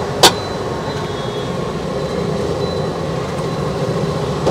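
A single sharp clink about a quarter second in, as at a street-food counter steel utensils are handled, over a steady low background rumble.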